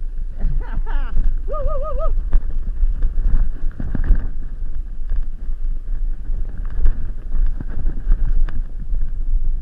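Mountain bike ride on a rough dirt trail heard from a camera on the bike or rider: steady wind rumble on the microphone with constant rattling and knocking from the bike over stones and ruts. A short wavering tone sounds about a second in.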